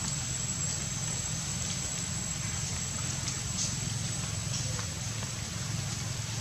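Steady forest background: a thin, high-pitched insect drone over a constant low rumble, with a few faint ticks.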